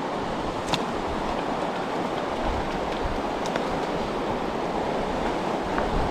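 Muddy river water rushing steadily over rocks and a low drop, a constant even rush of white water. A short sharp click sounds about a second in.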